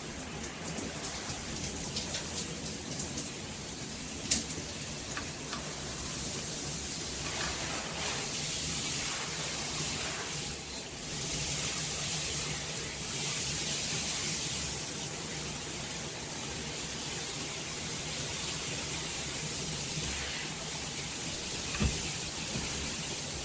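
Water spraying from a handheld filtered shower head, a steady hiss of spray splashing down, with a sharp click about four seconds in and a knock near the end.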